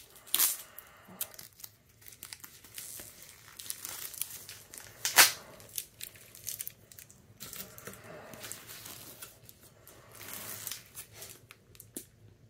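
Packing paper being torn and crumpled off a stack of comic books in plastic bags, with the plastic crinkling as they are handled. The noise comes in irregular crackly bursts, and one sharp rip about five seconds in is the loudest sound.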